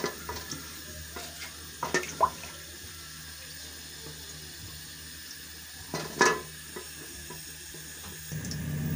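Long wooden spoon stirring oil in a large aluminium pot and knocking against the metal a few times, twice about two seconds in and once more loudly about six seconds in, over a steady hiss. A louder low hum comes in near the end.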